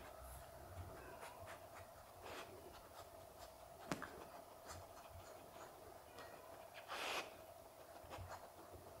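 Quiet, faint steady hum, with soft scratchy rustles and small clicks as a golden retriever and its puppy shift and sniff on a fabric couch cushion. A sharp click comes about four seconds in, and a short breathy puff, the loudest sound, about seven seconds in.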